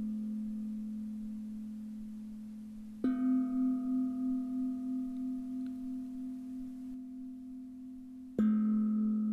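Singing bowls struck one at a time, each ringing on with a slow fade and a wavering beat. A higher-pitched bowl is struck about three seconds in and a lower one near the end, the alternating tones marking the changes between inhale and exhale in a steady breathing rhythm.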